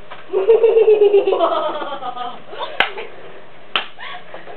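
A person laughing in a quick string of pulsed 'ha's that tails off about two seconds in, followed by a few sharp smacks.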